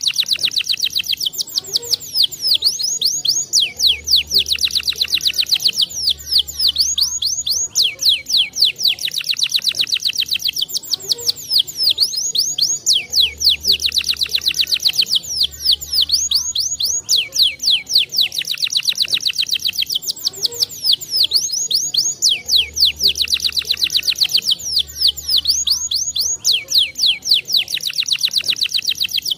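Domestic canary singing fast trills and rolls, the same song phrase repeating about every nine and a half seconds as a looped recording. A low hum comes in for a second or two at a time.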